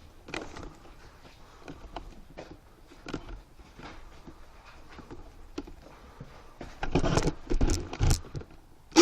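Scattered rustling and knocks from players moving with their gear, then a few loud, harsh rustling bursts close to the microphone about seven to eight seconds in.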